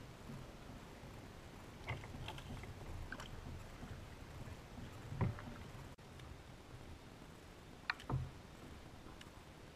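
Paddling a plastic kayak: water splashing and dripping, with scattered knocks and clicks against the hull over a low rumble. The loudest knock is about five seconds in, and two more come close together about eight seconds in.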